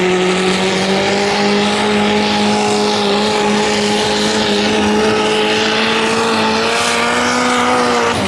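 Compact diesel pulling tractor's engine running at full throttle under load as it drags a weight-transfer sled, its pitch rising slowly. Right at the end the throttle is cut and the engine note drops away sharply.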